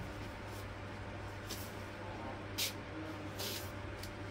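Fabric rustling and swishing in a few short bursts as clothes are folded and handled, the loudest about two and a half seconds in, over a steady low hum.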